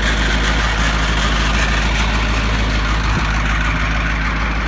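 1977 International Loadstar 1850 dump truck's Caterpillar diesel engine running steadily at idle, freshly started. A single low thump is heard about three seconds in.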